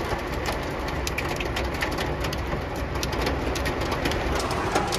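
Heavy rain and hailstones falling on a car's roof and windshield, heard from inside the cabin: a dense, steady patter with many sharp ticks of stones and drops striking the glass.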